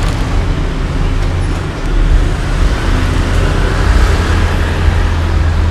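Steady road-traffic noise with a heavy low rumble.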